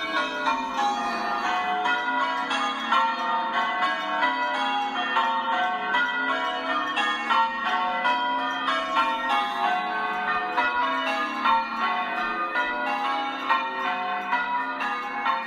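Church bells change ringing: a peal of tower bells struck one after another in quick, even succession, their tones overlapping and ringing on.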